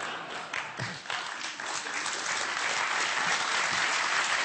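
Studio audience applauding, starting about a second in and growing louder.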